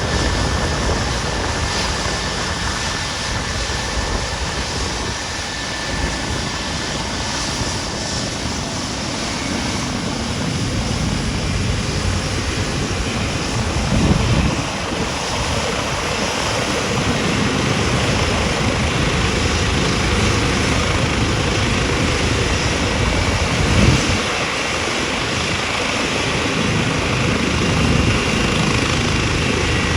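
Westpac Lifesaver rescue helicopter running, a loud, steady rotor and turbine noise, with a couple of brief low thumps about halfway through and near the end.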